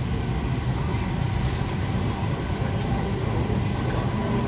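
EP2D electric train running between stations, heard from inside the carriage: a steady low rumble of wheels on track and running gear.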